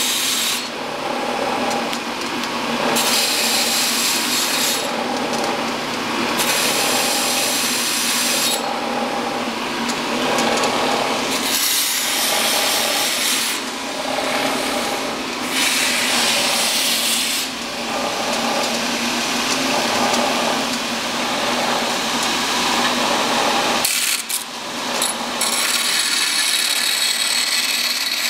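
Scratch-built belt sander running, with a rasping grind each time a metal bar is pressed against the belt, in repeated passes of a second or two.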